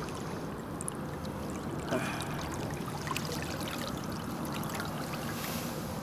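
Water splashing and rippling as a hooked fish is reeled in across the surface of the river, with one short knock about two seconds in.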